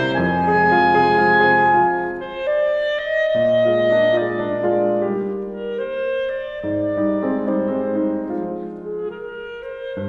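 Instrumental background music: a slow melody of held notes over sustained chords, the notes changing every second or two and softening somewhat in the second half.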